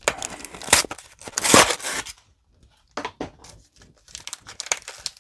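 A Pokémon TCG three-pack blister pack being torn open by hand: card backing and plastic tearing and crinkling, with a loud tear about one and a half seconds in, a brief pause, then lighter crackling.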